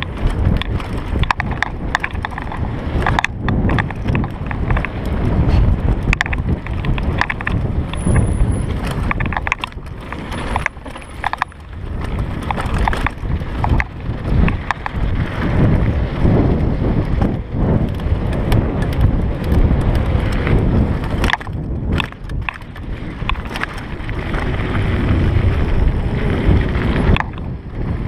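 Mountain bike descending a dirt trail at speed: a steady rumble of wind buffeting the microphone and tyres running over dirt and stones, broken by many sharp rattles and knocks from the bike jolting over bumps.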